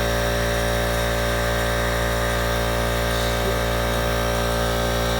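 Steady mechanical hum with several steady tones, holding an even level throughout.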